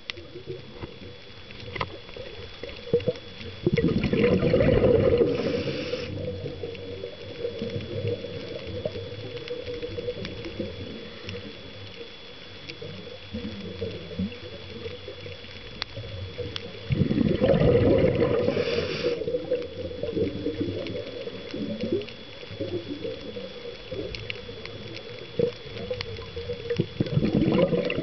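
Scuba diver breathing through a regulator underwater: a loud gurgling rush of exhaled bubbles about four seconds in, again at about seventeen seconds and near the end, each with a short hiss from the regulator. Between breaths there is quieter underwater background with faint scattered clicks.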